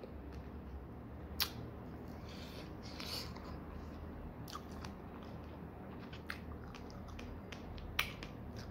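A person chewing a mouthful of fresh strawberry, with a few sharp mouth clicks, the loudest about a second and a half in and again near the end.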